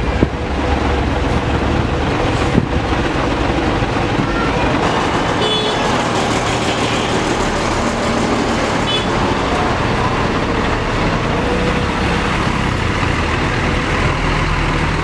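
Heavy diesel truck engine running as a Hino tanker truck creeps past at close range, with a couple of brief high squeaks midway.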